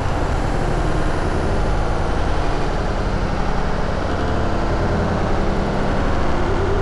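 Motorcycle running steadily under way, with road and wind noise. A steady held tone comes in near the end.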